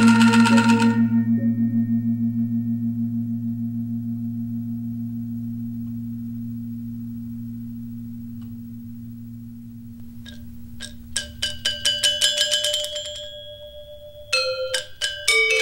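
Balinese gamelan music. A fast passage of struck metal keys stops, and a large gong's low, wavering tone rings on and slowly dies away. About ten seconds in, rapid metallophone strikes start up again, with a few louder strikes near the end.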